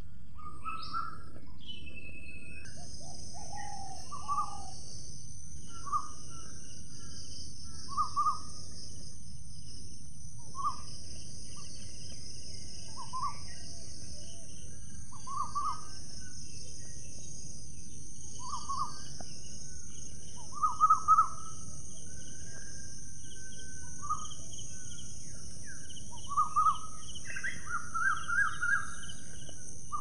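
Parrot giving short calls, one about every two seconds and closer together near the end, over a steady high hiss and low background noise.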